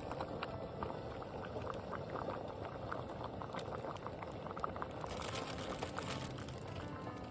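Liquid bubbling at a simmer in a pot: a steady hiss with many small, irregular bubble pops.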